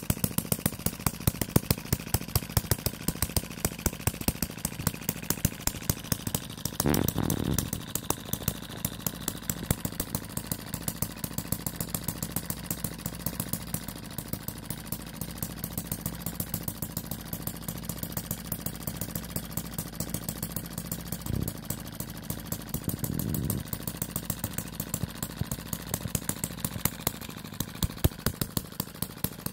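Miniature Upshur single-cylinder four-stroke petrol engine running on its own, each firing stroke a sharp crack in a quick steady rhythm.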